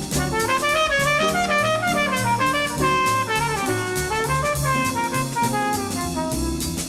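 Light instrumental jazz-style background music: a brass or saxophone melody over walking bass and drum kit at a steady beat.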